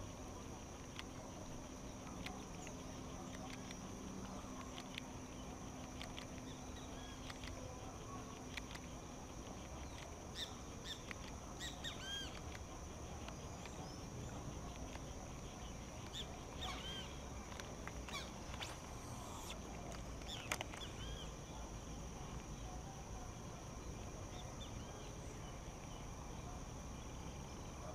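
Faint pond-side ambience: a steady high insect drone, with birds calling in short chirps and clicks, most of them in the middle stretch.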